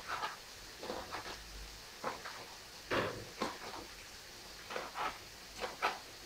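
Fingers picking seeds and stem off chopped hot chili on a plastic cutting board: about a dozen short, scattered taps and scrapes against the board.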